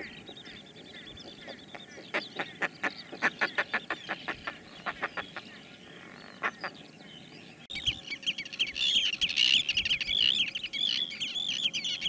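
Northern fulmars cackling: a rapid run of harsh, stuttering pulses. About two-thirds of the way through, the sound cuts to Arctic terns' high, harsh calls, many at once.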